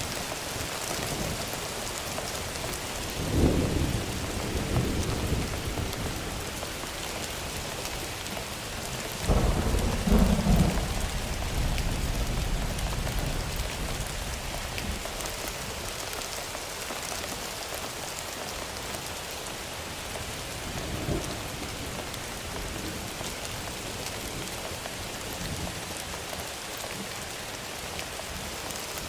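Thunderstorm sound effect: steady heavy rain with rolls of thunder, a rumble about three seconds in, a louder, longer roll around ten seconds in, and a smaller one about two-thirds of the way through.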